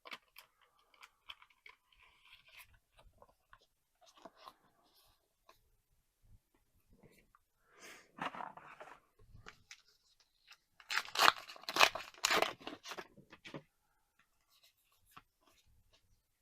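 A trading card booster pack being torn open, its wrapper crinkling loudest for a couple of seconds near the end, after soft rustling and clicking of cards being handled and shuffled.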